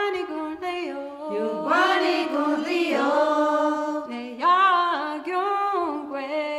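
Unaccompanied solo singing: one voice holding long notes that slide and step between pitches.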